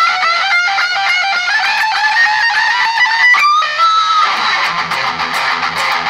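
Electric guitar strung with D'Addario EXL120BT nickel-wound 9–40 strings, playing a fast lead line of picked single notes with a string bend a little after three seconds in. From about four seconds in, a rougher, sustained chord rings on.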